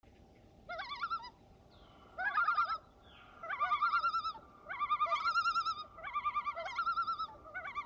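Common loon tremolo calls: a series of about seven wavering, quavering calls, roughly one a second.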